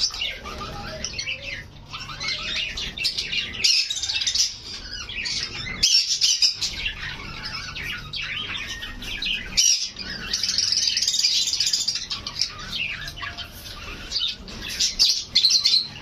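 Caged Java sparrows chirping and calling over one another, a dense stream of short high chirps and squawks, broken briefly a few times.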